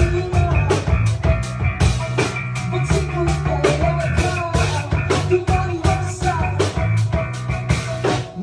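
Live rock band playing loud: a drum kit beating a steady rhythm and electric guitar, with a man singing into a microphone.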